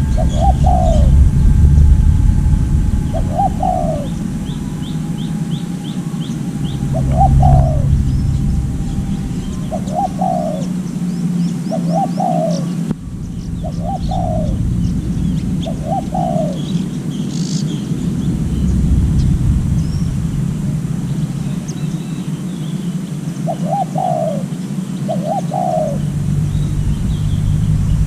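A dove cooing in short, arching single coos, about ten of them, every one to three seconds, with a pause of several seconds in the middle. Small birds chirp faintly and high above, over a steady low rumble.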